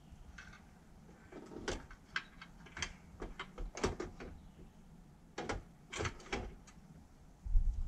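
Radiator being test-fitted into a pickup's front radiator support: a series of irregular metal knocks and clanks as it is shifted and pressed into place, with a heavier low thump near the end.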